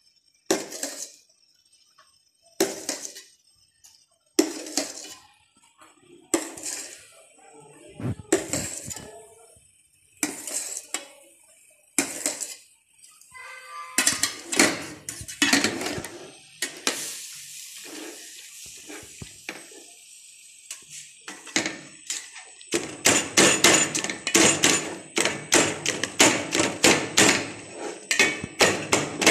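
Metal spatula striking and scraping a steel pan as cooked chicken is chopped fine: separate strikes a second or two apart, then about three-quarters of the way through a fast run of chopping strokes, several a second.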